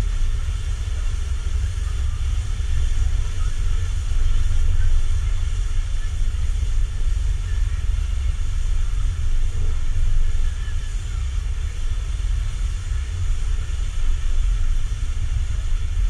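Steady low rumble of wind buffeting the microphone on a moving open chairlift, with a faint steady hum above it.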